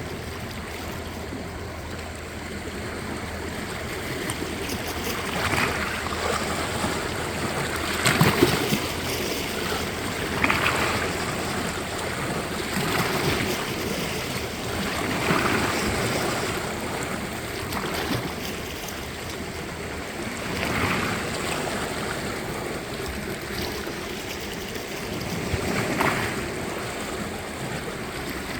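Small sea waves washing in and breaking gently on the shore, a fresh wash every two to three seconds over a steady hiss of surf.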